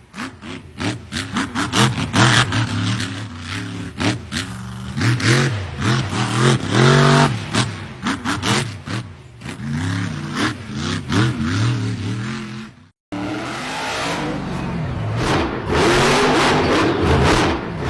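Off-road 4x4 engine revving up and down hard, with frequent knocks and clatter over it. About thirteen seconds in it cuts off abruptly, and another engine runs hard under a steady rushing noise.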